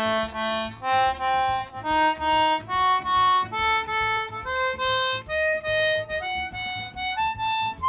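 Accordion reed block sounded on a wooden test bellows, its reeds played one at a time as single notes, each note sounding twice in quick pulses and stepping up and down in pitch. The reeds on this side have freshly glued valves and are not yet tuned.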